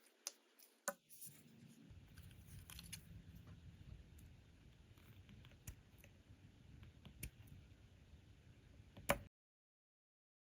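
Faint, scattered clicks and snips of tiny plastic miniature food pieces being cut up and handled, over a low hum. The sound cuts out completely about nine seconds in.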